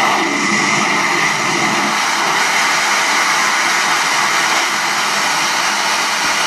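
Steady rush of engine and wind noise inside a small propeller plane's cabin with the jump door open, played back through a TV's speaker.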